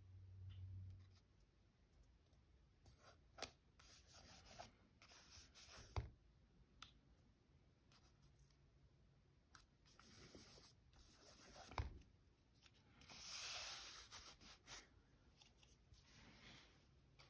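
Faint paper handling: stickers rustled, peeled and rubbed down onto a journal page, with three light knocks against the book.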